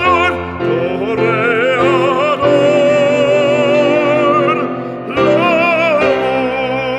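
Background music: a classical operatic voice singing with wide vibrato over instrumental accompaniment, with a brief break about five seconds in before the singing resumes.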